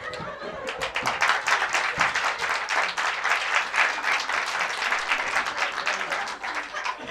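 Audience applauding, fading near the end.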